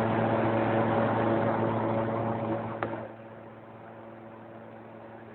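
Welding arc buzzing and hissing steadily, then cut off about three seconds in, leaving a quieter steady hum.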